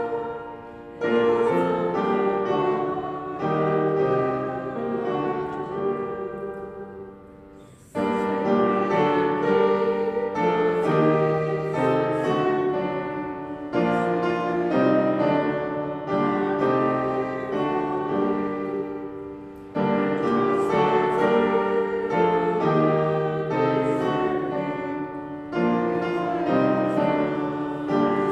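Piano playing a slow hymn tune in phrases. Each phrase opens with a fresh chord and fades before the next.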